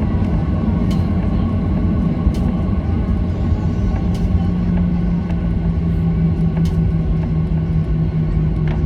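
Boeing 737-800's CFM56-7B engines at taxi power, heard inside the cabin: a steady low rumble with a hum that drops slightly in pitch about four seconds in, and a few faint clicks over it.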